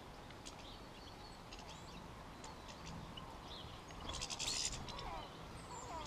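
European goldfinches at a seed feeder: faint chirps and twitters, with a brief louder burst of rapid, scratchy notes about four seconds in.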